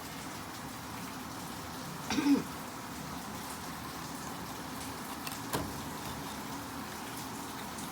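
Steady room hiss with one short vocal sound, like a brief throat-clearing hum, about two seconds in, and a single sharp click later on.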